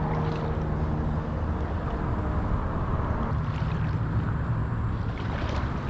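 A steady low hum and rumble, like an engine running.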